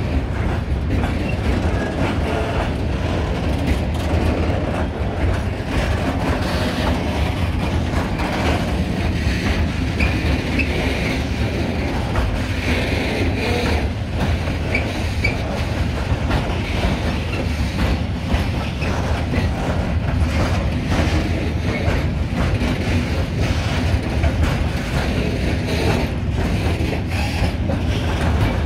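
Long freight train of open-top wagons rolling past: a steady low rumble with the clatter of wheels over rail joints, and a few brief high wheel squeals midway.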